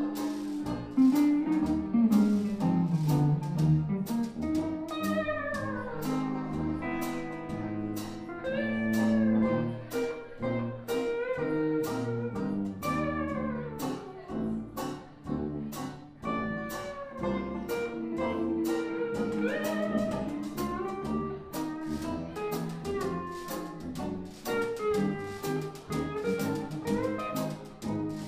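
Small 1920s-style jazz band playing: a lap steel guitar plays a melody of sliding, gliding notes over a steady strummed guitar rhythm and light percussion.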